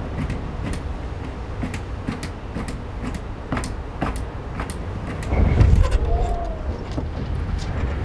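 Strong wind buffeting the microphone in a low rumble, gusting harder about five seconds in, over a run of sharp scratching clicks from a cat digging in its litter box.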